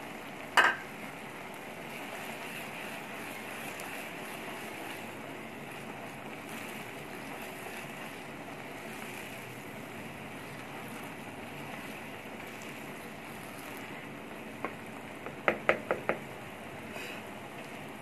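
Tomato-and-onion masala bubbling and sizzling in a non-stick frying pan, a steady hiss. A sharp clack about half a second in, and a quick run of four or five clacks about two seconds before the end, from the spatula knocking against the pan.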